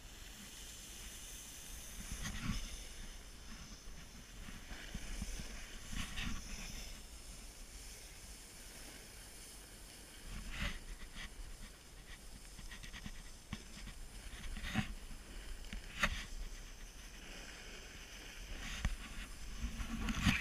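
Snowboard sliding over chopped-up packed snow, with wind rumbling on the camera's microphone and several sharp knocks and scrapes scattered through.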